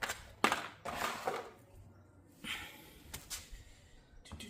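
A few light knocks and scrapes of door-handle hardware being test-fitted into a freshly drilled hole through a door.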